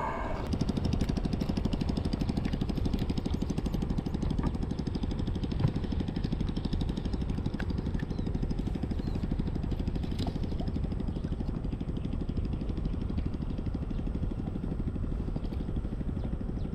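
Hangkai 12 hp outboard motor running steadily, a continuous fast even pulsing engine note with a few faint clicks over it.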